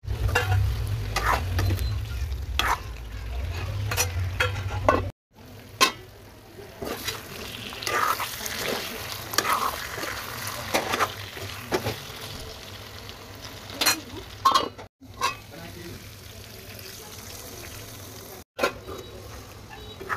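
Chicken and potato curry sizzling in a metal pan while a spoon stirs it, with repeated scrapes and clicks of the spoon against the pan.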